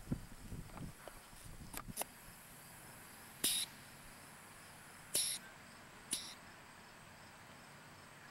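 Air pump of a toy air-pressure rocket launcher being worked, pressurising the launcher: three short hisses of air, the second about a second and a half after the first and the third a second later.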